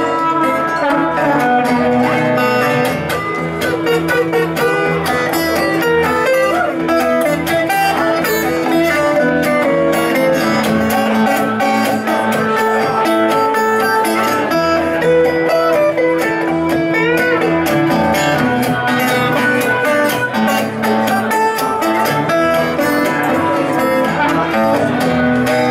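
Blues harmonica solo over strummed acoustic guitar, played live, the harmonica holding long notes with some bent ones.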